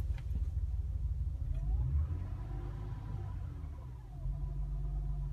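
2002 Acura TL's 3.2-litre V6 idling warm with a light knock that is still audible once hot, a low steady running sound. The owner wonders whether a new timing belt would cure the knock.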